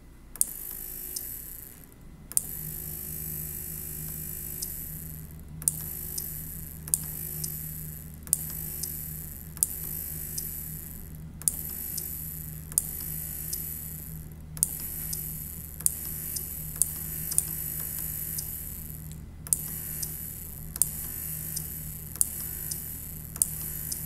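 Small relay on a microcontroller relay board clicking over and over, roughly once or twice a second, each time a received radio packet closes it to run a small DC motor for about a quarter second. A steady low hum starts about two seconds in under the clicks.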